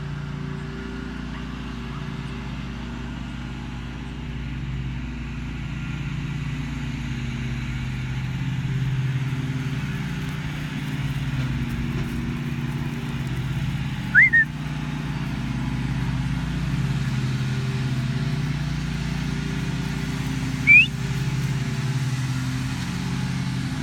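Lawn mower engines running steadily. Two short, sharp whistles cut in, one about 14 seconds in and another about 21 seconds in, typical of a shepherd's whistle commands to a herding dog.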